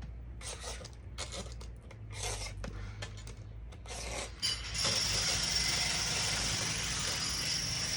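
Angle grinder with a new cutting blade working through thick plexiglass: short scraping passes at first, then about four and a half seconds in a loud, steady high-pitched cutting whine and hiss sets in and keeps going.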